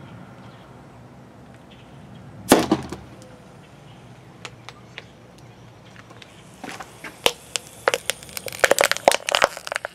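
The cap of a plastic water bottle that has been twisted tight to compress the air inside shoots off with one loud pop about two and a half seconds in. Near the end, a quick run of sharp crackles as the crumpled plastic bottle is handled.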